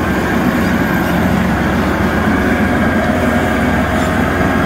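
Diesel engine of a John Deere 848L II grapple skidder running steadily as the machine drives past close by.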